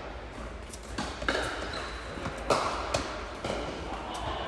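Tennis ball impacts: a handful of sharp knocks of ball on racket strings and court, spaced irregularly about half a second to a second apart, the loudest a little over a second in and again about two and a half seconds in.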